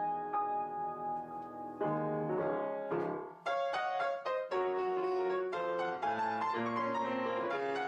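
Background piano music: a melody of separate notes over chords, with a short pause about three and a half seconds in before the playing picks up again.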